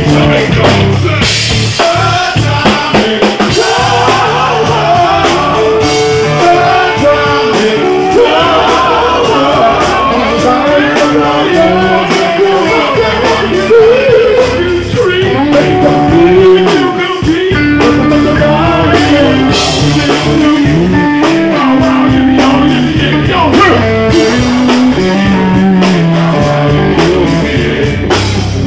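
Live funk band playing on stage: drum kit, bass and electric guitar, with singers on microphones.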